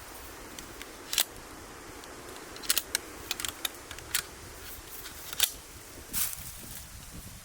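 Wood fire crackling: about a dozen scattered sharp pops and cracks over a faint steady hiss.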